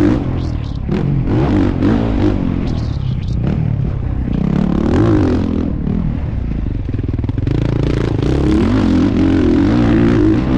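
Honda CRF450RW factory motocross bike's 450cc four-stroke single-cylinder engine, heard from a camera on the bike, revving up and dropping back again and again as the rider runs the throttle and shifts around the track, with short clattering knocks among it.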